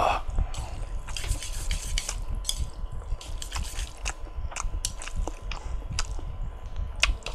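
Close-miked chewing of spicy instant stir-fried noodles: wet mouth clicks and smacks with a few short hisses in between.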